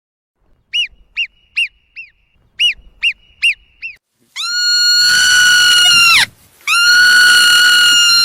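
An animal's calls: seven short, high, down-curving calls in quick succession, then two long, steady, high-pitched calls of about two seconds each.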